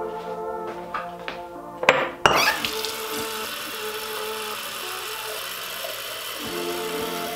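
Tap water pouring steadily from a bathroom sink faucet into a glass mason jar. It starts about two seconds in, just after a couple of sharp knocks, with music playing underneath.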